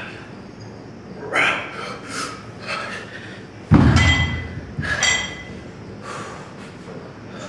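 Metal gym weights clanking: a heavy thud about four seconds in with a metallic ring, then a second ringing clank a second later, after a few fainter short knocks.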